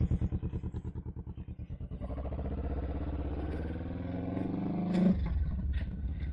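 Kawasaki Vulcan motorcycle engine heard from on the bike. It pulses at low revs, then pulls away with revs rising steadily, and the revs drop abruptly with a gear change about five seconds in before it runs on steadily.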